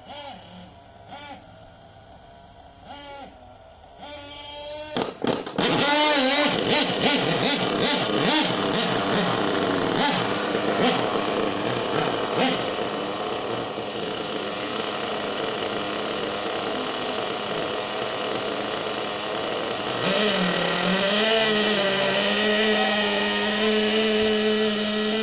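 Small nitro-fuelled RC model engine comes in loudly about five seconds in, revving up and down unevenly, then settles into a steady, even note from about twenty seconds in.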